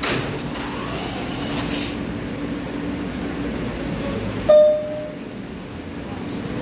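New York City subway train standing at an elevated platform with its doors open, its equipment humming steadily. A short hiss comes at the start, and a brief loud tone sounds about four and a half seconds in, after which the hum drops.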